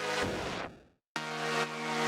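Electronic background music with sustained synth tones, briefly cutting out to silence about halfway through.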